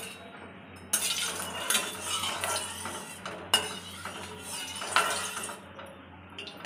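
Hot oil in a kadai sizzling as pieces of marinated rohu fish go in: three bursts of sizzling that start about one, three and a half and four and a half seconds in, each fading away.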